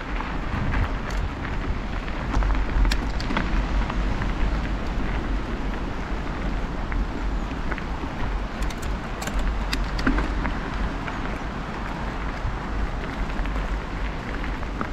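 Mountain bike being ridden: wind rumbling over the microphone, with the hiss of the tyres rolling and scattered small clicks and crackles.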